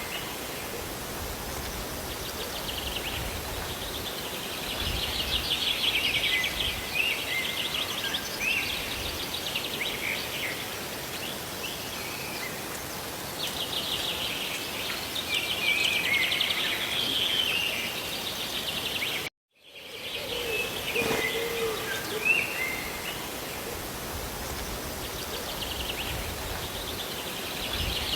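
Steady hiss of rain and falling water, with small birds chirping in repeated bouts of quick high notes. The sound cuts out completely for a moment about two-thirds of the way through.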